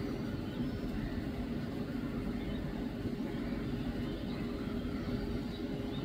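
Steady low rumble of distant town traffic with a constant hum running under it, and faint, sparse bird chirps high above.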